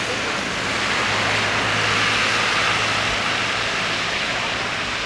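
Steady hiss of rain falling on a wet street, with a low steady hum joining about a second in.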